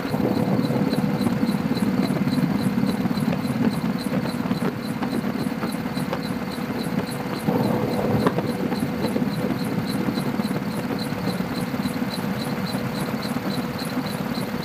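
Helicopter cabin noise: a steady drone of engine and rotor with fast, evenly spaced pulsing and a faint steady hum, swelling briefly about eight seconds in.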